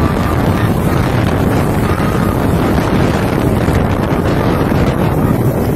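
Strong storm wind from a passing tornado buffeting the phone's microphone: a loud, continuous rumbling rush of wind noise.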